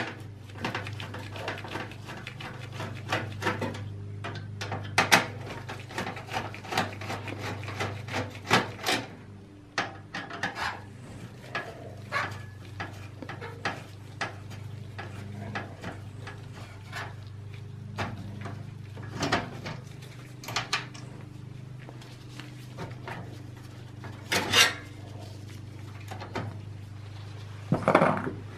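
Screwdriver undoing the motherboard screws in a steel PC case: irregular light metallic clicks and ticks, a few sharper ones, over a steady low hum.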